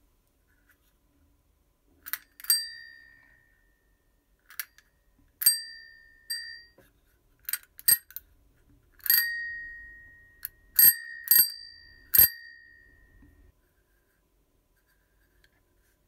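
A rusty vintage gear-mechanism bicycle bell rung by its thumb lever about a dozen times, in irregular single and double dings. Each ding rings at a steady, bright pitch and fades over about a second.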